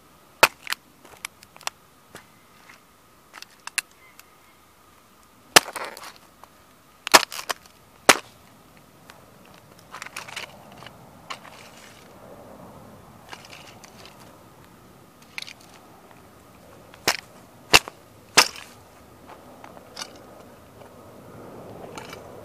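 Sneakers stomping a 1:18 scale model toy car into soft dirt: its body and parts crack and snap under each stomp, with softer crunching in between. The sharp cracks come irregularly, loudest in a cluster about six to eight seconds in and again about seventeen to eighteen seconds in.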